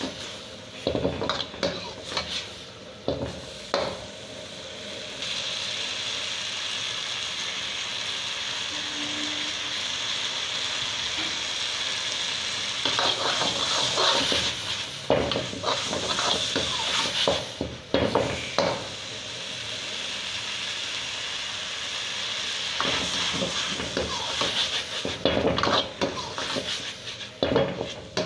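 Metal ladle knocking and scraping against a wok while chicken and green chillies sizzle in it. Bursts of ladle clatter come at the start, in the middle and near the end, with steady sizzling between them.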